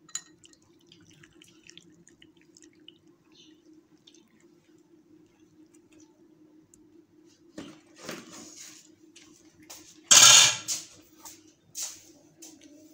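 Faint ticks and drips over a low steady hum, then from just past halfway a series of clinks and clatters of crockery and utensils being handled and set down on a hard counter. The loudest is a single clatter about ten seconds in, followed by a few lighter knocks.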